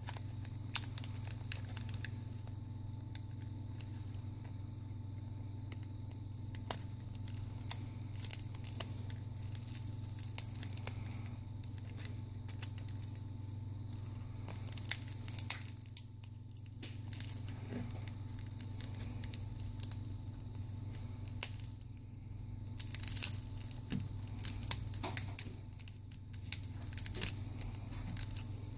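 Scattered clicks, scrapes and crackling as a prying tool separates a cracked Samsung Galaxy S5 screen from the adhesive around the phone's frame, coming in clusters, busiest around the middle and near the end, over a steady low hum.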